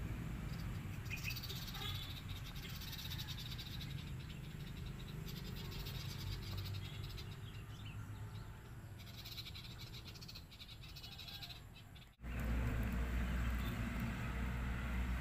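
Outdoor ambience: a steady low rumble of wind on the microphone under a pulsing chorus of small calling animals that comes and goes in patches. The sound drops out for a moment about twelve seconds in and comes back louder.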